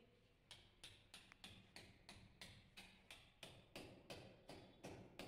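Hand hammer striking a steel anchor bolt into a drilled hole in a concrete ceiling: sharp blows in an even rhythm, about three a second, starting about half a second in.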